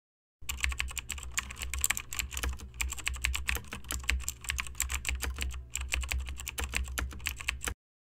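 Computer keyboard typing sound effect: rapid, irregular key clicks that start just after the beginning and stop shortly before the end, over a low steady hum.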